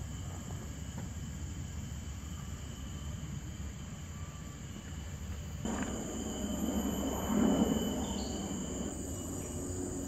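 Forest ambience: insects keep up steady high-pitched trilling over a low rumble. A little past halfway the sound changes abruptly and a louder noise swells briefly, then fades.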